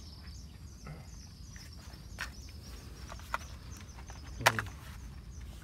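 Quiet outdoor ambience: a low wind rumble and faint high chirping repeating through, with a few short clicks and one louder sharp knock about four and a half seconds in, the sound of fishing tackle being handled.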